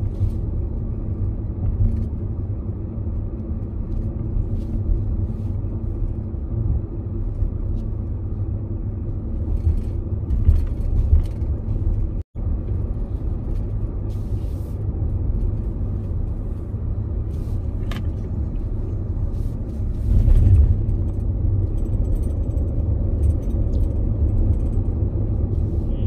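Steady low rumble of a car's engine and tyres on the road, heard from inside the moving car's cabin, with a momentary dropout about halfway through.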